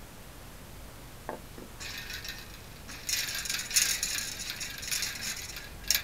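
Close handling noise from a hand picking up and holding a smartphone: a soft tap about a second in, then crackly rustling and rattling that grows louder, and a sharp click near the end.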